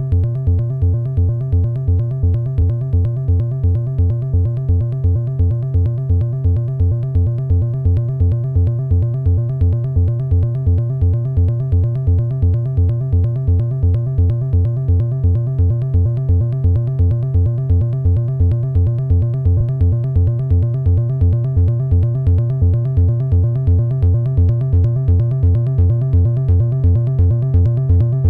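Behringer 2600 analog synthesizer playing a hypnotic minimal sequence: one low note pulsing evenly in a fast steady rhythm, with fainter higher tones repeating above it.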